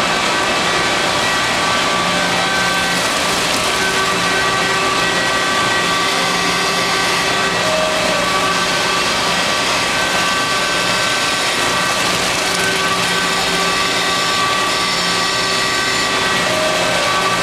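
Mattison surface grinder running, its grinding wheel working steel angle fixture blocks: a loud, even grinding hiss with several steady tones on top, some fading in and out every few seconds.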